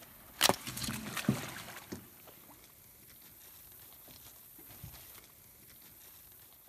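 An alligator going over the side of an aluminum boat into the water: a sharp splash and knock against the hull about half a second in, a few more splashes and knocks over the next second and a half, then only faint water noise.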